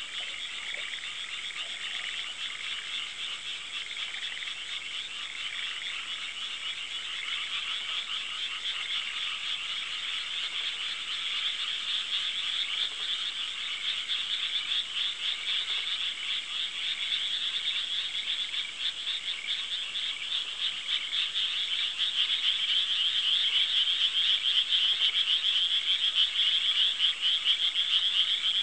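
A dense chorus of many frogs calling at once, a continuous mass of rapid pulsed croaks that swells louder over the last third.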